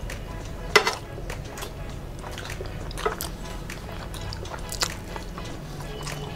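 Close-up mukbang eating sounds: wet squishing as rice is kneaded into curry by hand, with chewing and a few sharp lip smacks, the loudest about a second in.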